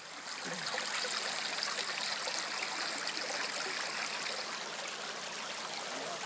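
Shallow creek water running over stones in a steady rush, growing louder about half a second in.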